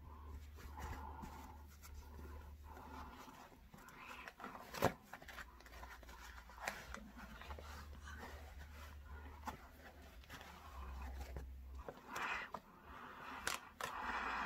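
Soft rustling and scraping of a pleated 3-ply disposable face mask being handled and fitted over the face with gloved hands, with a sharp tap about five seconds in and a low hum coming and going.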